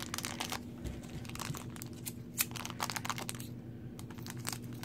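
Crinkly foil blind bag crackling as it is handled and squeezed in the fingers, in short irregular crackles with one sharper click about halfway through; scissors cut into the wrapper near the end.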